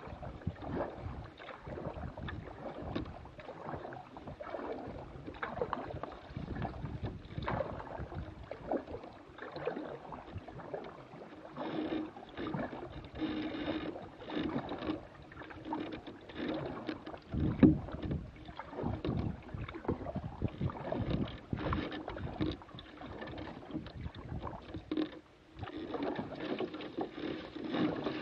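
Paddled canoe moving along a river: uneven water splashes from the paddle strokes and knocks on the hull, with one louder knock about halfway through.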